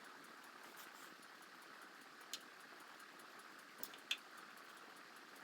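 Near silence: faint room hiss with a few small clicks from wires and speaker parts being handled, once about two seconds in and twice close together near four seconds.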